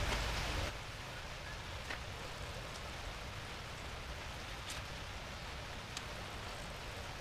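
Steady hiss of light rain with a few faint scattered ticks, after a louder rushing noise that stops under a second in.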